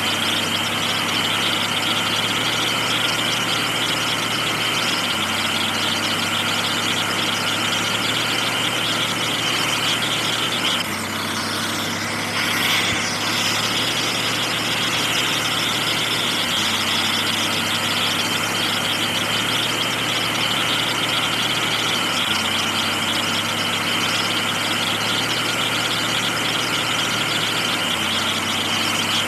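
Steady running sound of a heavy truck engine, a sound effect laid over plastic toy vehicles that repeats in a loop about every six seconds. It changes briefly about twelve seconds in.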